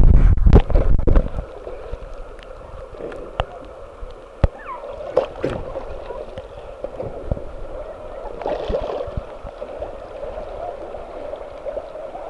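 Whitewater of a tidal rapid splashing loudly over a kayak-mounted camera for the first second or so, then the steady rush of the rapid with water gurgling and lapping against the kayak, broken by a few sharp knocks.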